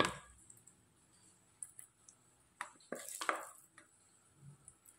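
Metal spoon clinking and scraping against a stainless-steel mixer jar while thick wheat flour and coconut batter mix is scooped in. A sharp clink comes at the start, a couple of faint ticks follow, and a cluster of knocks and scrapes comes about three seconds in.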